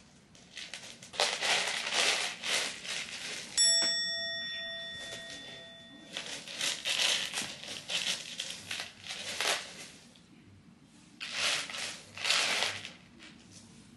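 Cat scratching and digging at the litter in a plastic litter tray, covering up, in three bouts of gritty scratching. About three and a half seconds in, a single bright ring sounds and fades out over about two seconds.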